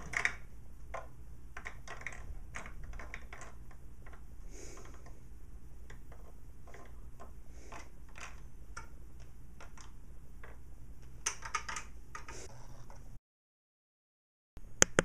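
Low steady hum with scattered light clicks and taps. The sound cuts out about thirteen seconds in, and a short cluster of sharper clicks comes near the end.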